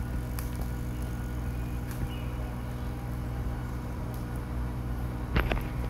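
Bucket truck's engine idling steadily, with a couple of sharp knocks near the end.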